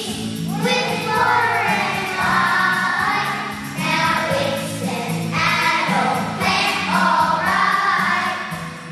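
A group of young children singing a song together in short phrases.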